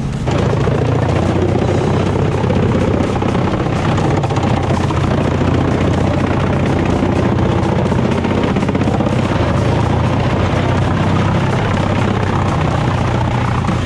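Heavy engine-driven machinery running steadily, a low engine drone under dense mechanical noise, starting abruptly just after the start.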